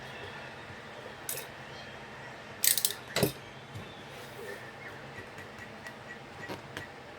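Handling noise while working on a craft canvas: a few sharp clicks and a short clatter about three seconds in, over a steady faint hum.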